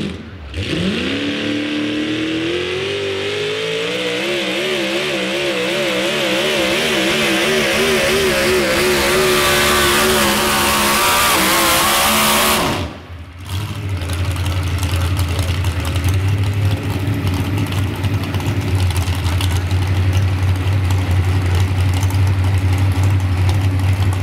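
Pulling truck's engine at high revs, its pitch climbing and then wavering up and down as it pulls. About halfway there is a brief dropout, after which a lower, steady engine drone takes over.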